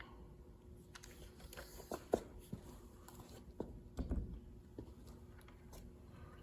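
Handling noise from getting the polisher and compound ready: scattered light clicks and taps, with a sharper click about two seconds in and a dull thump about four seconds in. The polisher is not running.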